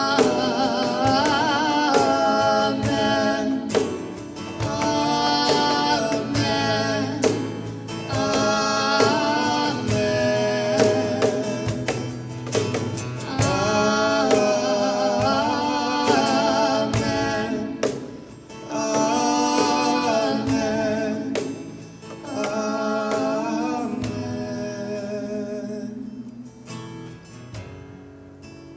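A woman singing a slow worship song over acoustic guitar, in long phrases with held, wavering notes. The singing stops about 25 seconds in and the music fades down.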